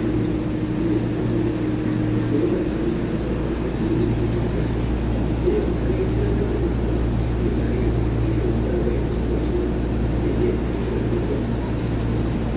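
EMU3000 electric multiple unit standing at the platform with its doors open, its onboard equipment giving a steady low hum mixed with the platform's background din.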